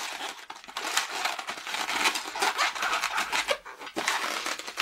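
Inflated 260 latex modelling balloon rubbing against itself and the hands as its bubbles are twisted and joined together, a continuous rustling with a few short clicks.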